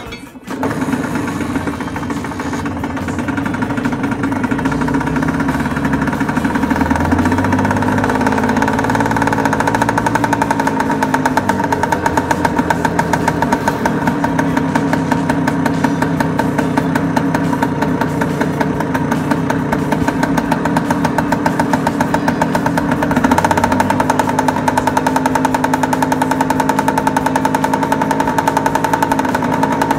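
Vespa scooter's two-stroke engine catching right at the start and then running, on its first start after a winter lay-up. Its speed wavers up and down now and then as it warms.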